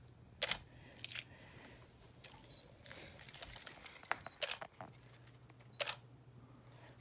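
Short bursts of metallic jingling from small metal pieces shaken by hand: a few quick shakes, then a busier run of jingling about three to four and a half seconds in, and one more near the end.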